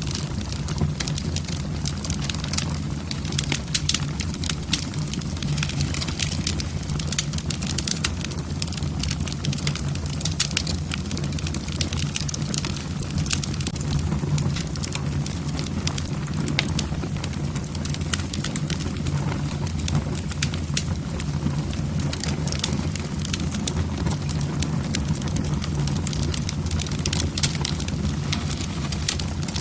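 Logs burning in a fireplace, crackling with many small irregular pops over a steady low rumble of the flames.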